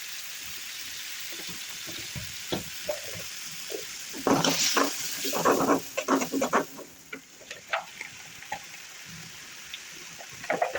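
Fish curry sizzling in a pan with a steady hiss. A spatula stirs and scrapes in it with a run of loud clattering strokes from about four to seven seconds in, then lighter scattered taps.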